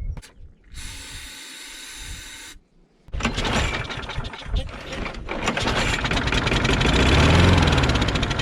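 An aerosol can of starter fluid hisses briefly. Then the old Craftsman lawnmower's small gas engine fires up and runs with a rapid chatter, speeding up and dropping back near the end. It is running only on the starter fluid, the sign that the carburetor is not passing fuel.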